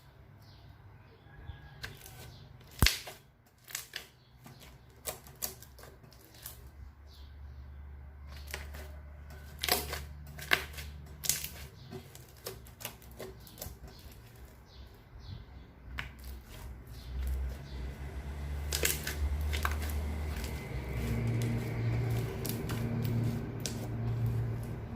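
Slime-making handling noises: scattered sharp clicks and taps of objects being handled, the loudest about three seconds in, with a low hum coming up over the last few seconds.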